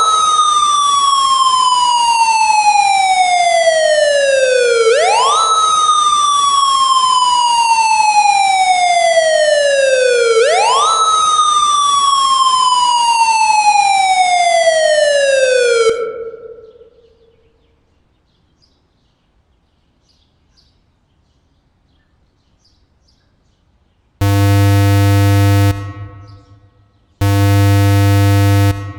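Outdoor warning siren sounding in a test: a tone jumps quickly up in pitch, then glides slowly down over about five seconds, three times in a row, and fades out about two-thirds of the way through. After a pause, a harsh, buzzy emergency tone sounds in two steady blasts of about a second and a half each near the end.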